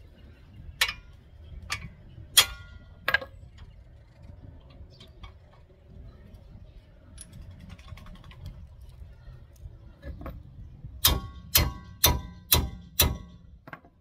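Sharp metal-on-metal strikes with a brief ring, from tools working on the front brake caliper's 19 mm bolts. Four come about a second apart, then a quicker run of five about half a second apart near the end.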